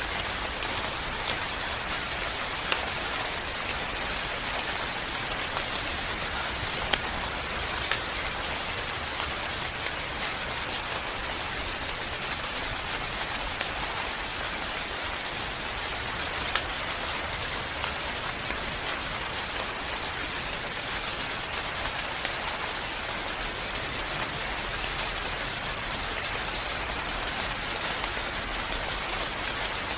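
Steady, heavy rain falling on a surface, a dense even patter with scattered sharper drop ticks.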